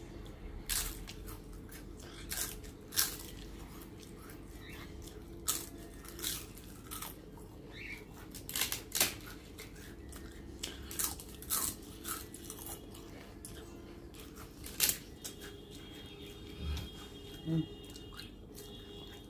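Crisp fried papad being bitten, chewed and snapped apart by hand: irregular sharp crunches, roughly one a second.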